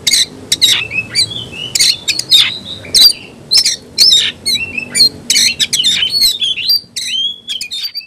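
Oriental magpie-robin singing a rapid, loud run of sharp notes and short falling whistles: the excited song of a bird worked up to fight.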